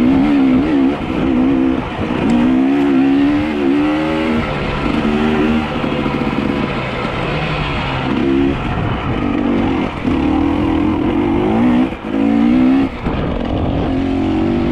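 An engine revving up and down again and again, its pitch wavering and dropping away briefly between revs.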